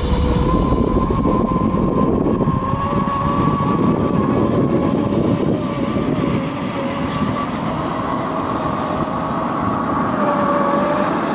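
A 1/10-scale RC crawler's brushed 55-turn electric motor and spur-and-pinion gears whine steadily, the pitch wavering with the throttle, while the tyres churn and crunch through loose gravel.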